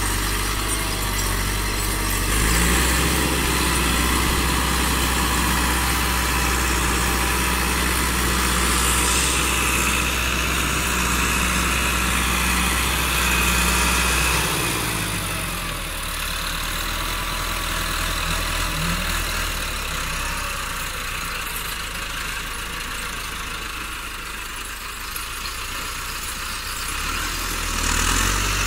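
Massey Ferguson 385 tractor's diesel engine running steadily under load as it pulls a cultivator through soil. Its low drone drops and thins about halfway through and comes back strongly near the end.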